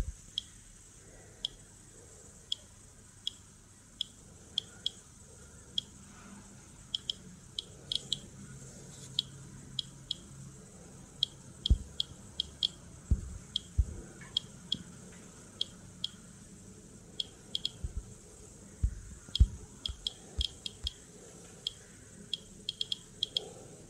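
Geiger-counter dosimeter clicking at random intervals, about two to three short high clicks a second, each marking a detected particle. A few low thumps from the case being handled in the hand come in the second half.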